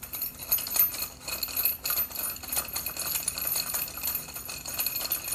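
Rapid light metallic clicking and clinking of long steel bolts, nuts and washers being unscrewed and handled by hand, freeing a 3D-printed seal-installer cup from the engine's front cover.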